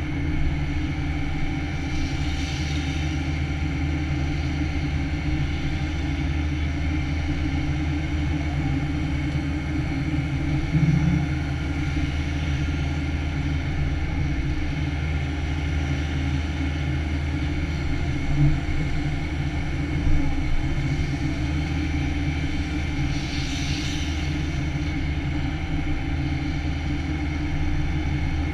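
Takeuchi TB175 excavator's diesel engine running steadily under working load with its hydraulics, heard from inside the cab. There are a few brief low thumps around the middle and two short hisses, near the start and near the end.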